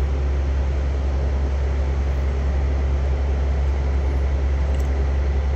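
A steady, unbroken low mechanical hum, like a machine or engine running at constant speed.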